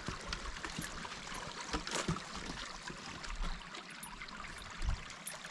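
Faint steady trickle of running water, with a few sharp knocks of footsteps on loose wooden pallet boards.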